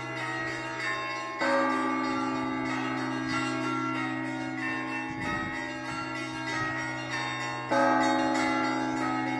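Russian Orthodox church bells ringing (zvon): smaller bells chiming over the steady hum of a large bell. Two heavy strokes on a big bell come about a second and a half in and again near the end.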